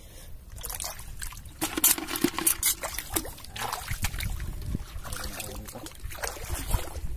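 Shallow tidal water sloshing and trickling, with irregular splashes as a hand works in the water and feet wade through the shallows.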